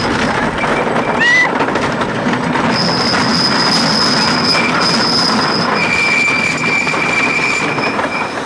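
Rolling Thunder wooden roller coaster train running fast on its wooden track, a steady loud rumble and clatter. From about three seconds in there are long high-pitched squeals from the steel wheels on the rails as the train rounds a curve, with a lower squeal later on.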